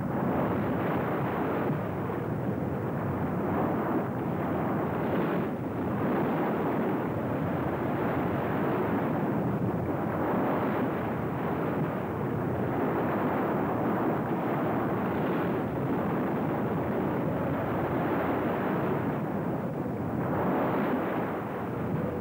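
Floodwater pouring over the crest of a dam as a huge waterfall: a steady, dense rushing noise with no breaks, swelling slightly near the end, heard through an old film soundtrack that is dull and cut off at the top.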